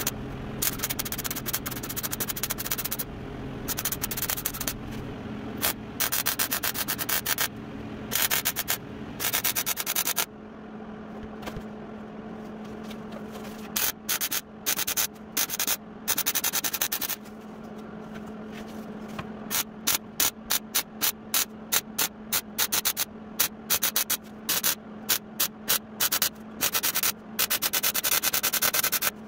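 MIG welding on steel sheet: the arc crackles in many short bursts with brief gaps, coming quicker and choppier in the second half, over a steady low hum.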